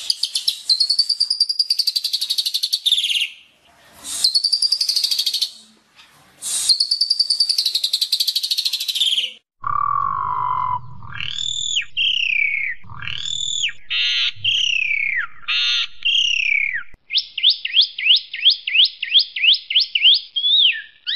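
Songbird singing loud, varied song: harsh, fast-rattling buzzy phrases broken by short pauses, then clear whistled notes sliding down in pitch, ending in a quick run of repeated sharp notes, about three or four a second.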